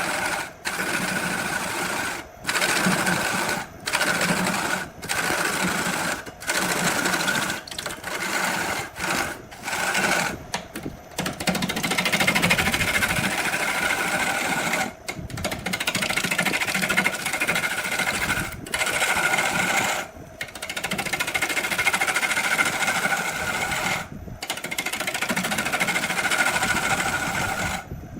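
A small electric power tool working wood with a steady whine, stopping and starting about once a second at first, then running in longer stretches broken by short pauses.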